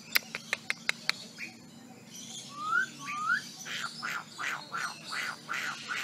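Myna calling: a quick series of about six sharp clicks, then two short rising whistles, then a run of about seven repeated harsher notes, roughly three a second.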